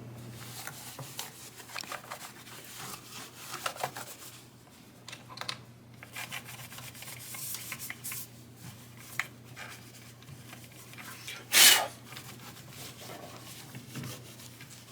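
Rubbing and scraping of hands and a wiping cloth working over a guitar's fretboard and frets, with scattered small handling clicks and one louder brief swish about twelve seconds in, over a low steady hum.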